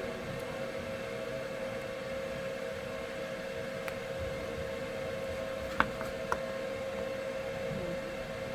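Fume-extractor fan running with a steady hum, and two light clicks about six seconds in.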